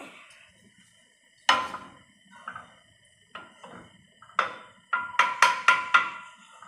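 Sharp knocks of a kitchen utensil against a cooking pan, each with a short ringing tone: a few spaced single knocks, then a quick run of about six near the end.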